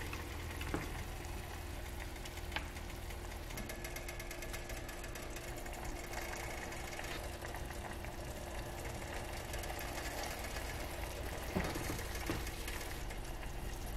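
Steady low mechanical hum with a faint constant tone, with a few soft taps as cooked duck pieces are set down on a wooden cutting board.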